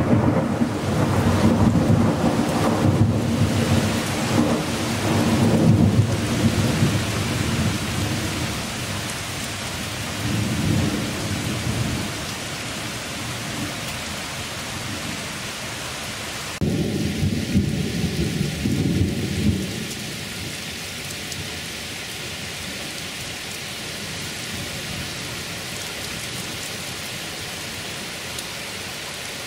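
Heavy rain falling steadily, with thunder rumbling through the first several seconds, a shorter rumble about ten seconds in, and another that starts suddenly a little past halfway and dies away about three seconds later. After that only the steady hiss of the downpour remains.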